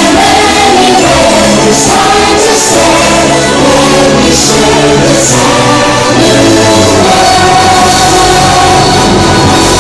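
Loud orchestral show music with a choir singing, played over outdoor park loudspeakers as the soundtrack to a fireworks show.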